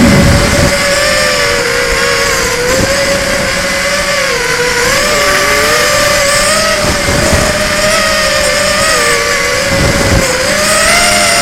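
FPV quadcopter's brushless motors and propellers whining, the pitch wandering up and down as the throttle changes, heard through the onboard camera. A few short low rumbles, the strongest right at the start.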